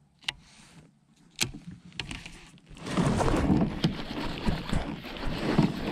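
Two sharp clicks, then from about three seconds in a loud, continuous rush of rustling and clattering from the kayak and fishing tackle as the baitcasting rod is swept up in a hookset.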